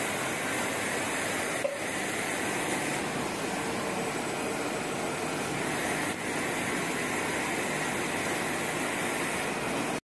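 Roll-to-roll screen printing machine running, a steady mechanical hum and hiss, with a single click about a second and a half in.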